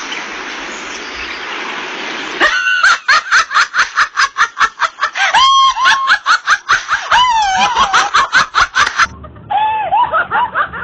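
A woman laughing hard in rapid, high-pitched peals, several a second, with squealing rises and falls in pitch. The laughter starts after about two and a half seconds of steady hiss and grows softer near the end.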